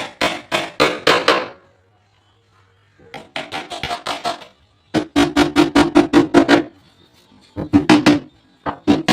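Background music with fast, even plucked or strummed strokes, about five a second, stopping briefly about two seconds in and again near seven seconds.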